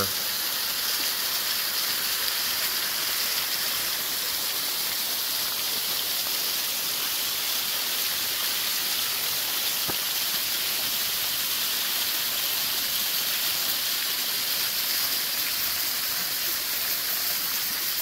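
Mountain waterfall cascading down a steep rock face and splashing onto loose rock, a steady rushing that holds at one level throughout.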